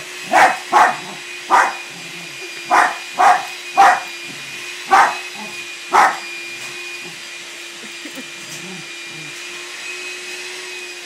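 A dog barking in play, with about eight short, sharp barks over the first six seconds and then stopping. A steady hum runs underneath.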